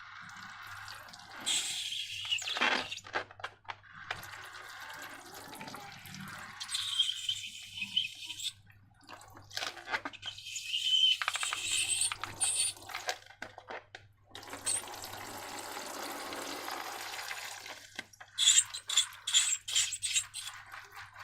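Slime being squished and stirred by hand: wet, sticky squelching in irregular bursts, with a run of quick sticky clicks near the end.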